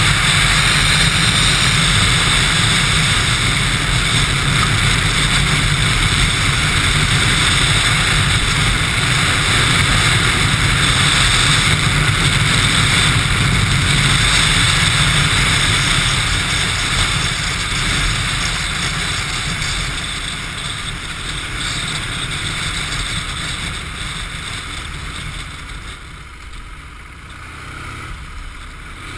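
Chopper-style motorcycle under way: engine running with a heavy rush of wind on the microphone. The sound steady at first, then growing quieter through the second half as the bike eases off.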